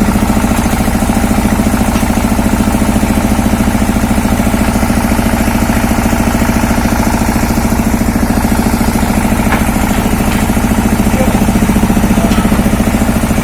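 Engine of an industrial well-drilling rig running steadily, with a fast, even beat and no change in speed.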